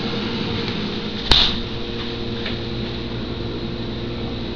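Steady machine hum in a small room, with a single sharp click about a second in.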